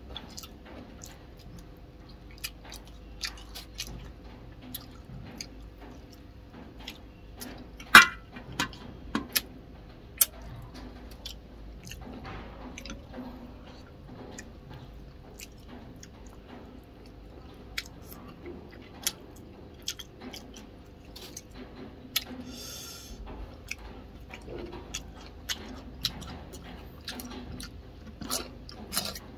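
Close-up eating sounds: chewing and mouth noises from a man eating fish and noodles, with chopsticks clicking against a ceramic rice bowl. The sharpest click comes about eight seconds in, and near the end he bites into a raw cucumber.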